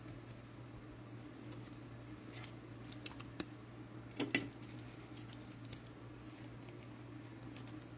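Faint handling sounds of trading cards and cello pack wrappers: scattered light clicks and rustles, with a short louder burst of handling noise a little past four seconds in, over a steady low hum.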